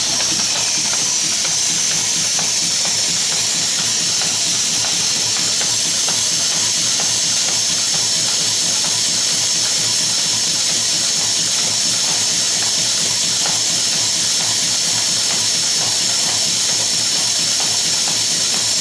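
Automatic nylon zipper slider assembly machine running: a steady hiss of compressed air with fast, light clicking from its feeders and assembly mechanism.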